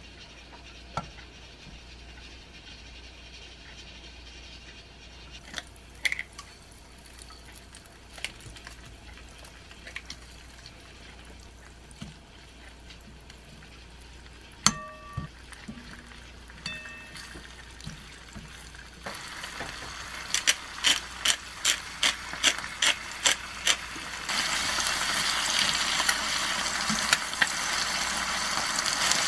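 Butter sizzling faintly in a frying pan, with light taps of metal tongs and a sharp clink about halfway through. Eggs and bacon then fry in the pan. A pepper mill is turned with quick, even clicks, about two a second, and the sizzle grows louder over the last few seconds.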